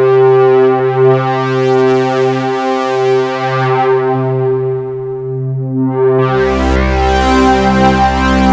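Korg Minilogue XD synthesizer holding a sustained chord. The tone dulls as the filter closes, then about six seconds in a new chord with a deeper bass note comes in and the sound brightens again.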